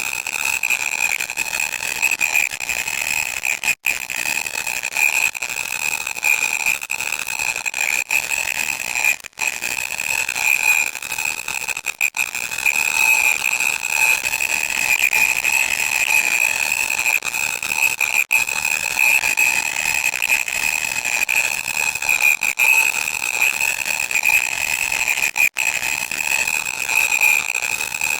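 Loud electronic static: a harsh hiss with a steady shrill whine running through it, cut by a few brief dropouts.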